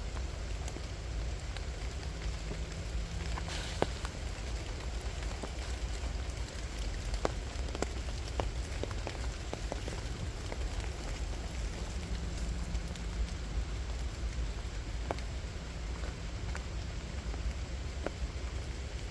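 Rain falling steadily, with many individual drops ticking at irregular moments over a low steady rumble.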